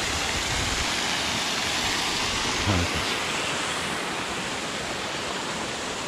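Steady rush of water from a mountain stream, with a short low voice sound about halfway through.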